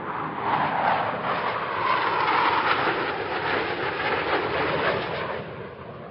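Jet aircraft noise, a loud rushing rumble that swells, holds and fades near the end, cut off abruptly just after.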